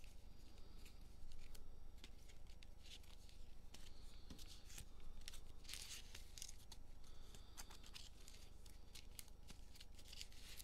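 A stack of glossy 2021 Panini Mosaic football cards being sorted by hand: faint, scattered swishes and small clicks as the cards slide and tap against one another.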